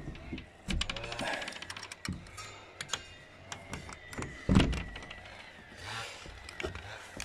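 Clicks, knocks and thumps of someone climbing out of and down a wooden elevated hunting stand, with hands and boots on its wooden frame and ladder. One heavier thump comes about halfway through.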